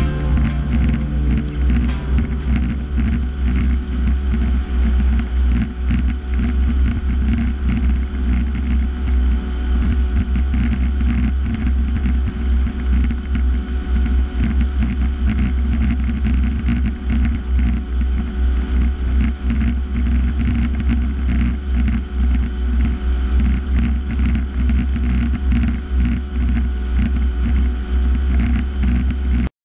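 John Deere 4630 tractor's diesel engine running steadily at road speed, a constant low drone heard from a camera mounted outside on the machine, cutting off just before the end.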